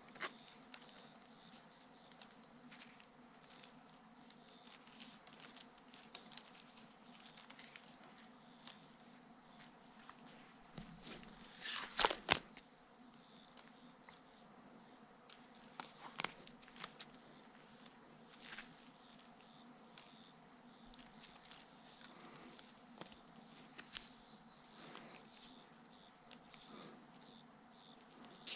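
Insects chirping in an even, repeating pulse, a little more than one chirp a second, over a steady high hum. A few sharp clicks of handling noise cut through it, the loudest about twelve seconds in.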